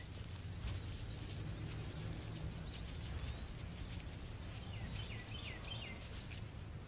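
Outdoor field ambience: a steady low rumble under a steady high insect drone, with a few short bird chirps, the clearest about five seconds in.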